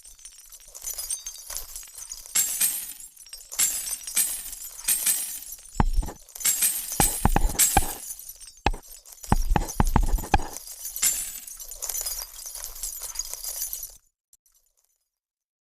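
Rock being crushed: a run of crunching, cracking breaks with several heavier thuds in the middle. It stops suddenly near the end.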